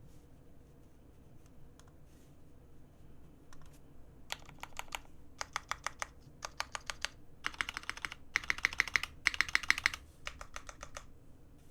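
Typing on a custom mechanical keyboard with linear Cherry Hyperglide Black switches on 70g springs in an aluminium plate, with GMK keycaps. A few faint scattered keystrokes at first, then fast runs of keystrokes from about four seconds in, loudest in the later runs and thinning out near the end.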